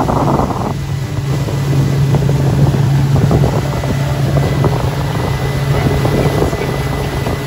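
Motorboat engine running steadily under load while towing, a low drone, with wind buffeting the microphone and the rush of water from the wake.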